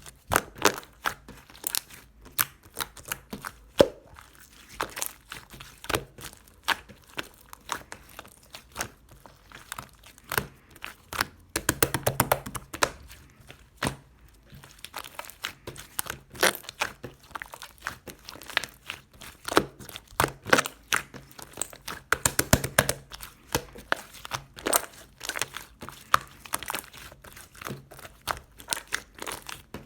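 Clay-mixed slime being squeezed, stretched and pressed by hand, giving dense irregular crackling and popping clicks. The crackling is busiest about twelve seconds in and again around twenty-two seconds.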